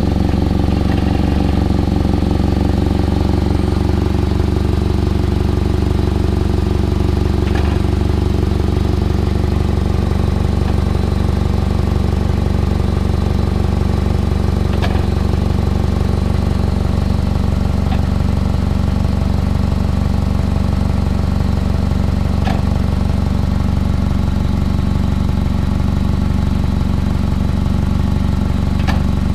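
2006 Toyota Camry engine idling steadily, its exhaust heard up close; the owner suspects an exhaust leak or a clogged catalytic converter. A faint tick comes about every seven and a half seconds.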